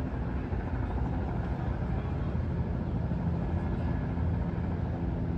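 Steady low outdoor rumble of engines, with a faint murmur of voices; no firework bursts.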